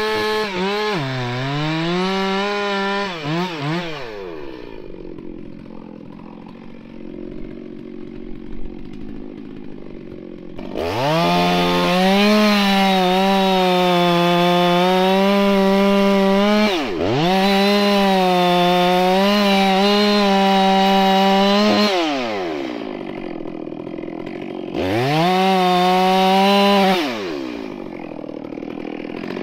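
Gas chainsaw with a long 36-inch bar cutting into a stump. The engine revs and dips, drops to idle, then runs at full throttle through two long cuts of about five seconds each with a brief dip between, falls back to idle, and revs again briefly near the end.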